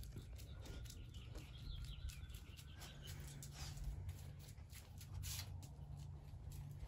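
Faint birdsong in the background, with light clicks of a dog's claws on a concrete patio.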